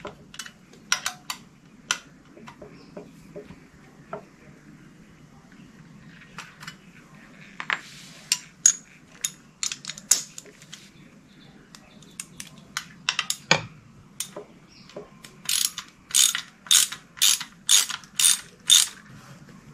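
Ratchet clicking as the new rear brake lever's threaded pivot pin is run in: scattered clicks at first, then a steady run of about two to three clicks a second near the end.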